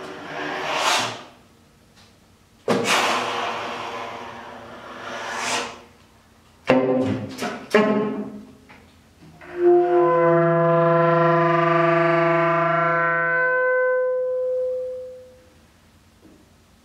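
Solo saxophone playing a contemporary piece: two swelling, unpitched airy sounds, then a few short sharp attacks, then a long held low note with a rich stack of overtones that fades away about 15 seconds in.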